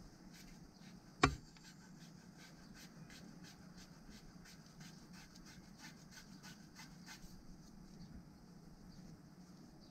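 Gloved hands rubbing along a landing-net handle over a steel bowl, stripping its old paint, giving faint scratchy rubbing strokes. There is one sharp knock about a second in.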